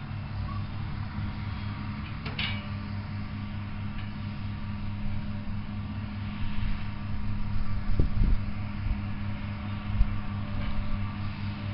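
A steady machine hum with a low, even drone, with a few short knocks about two and eight seconds in.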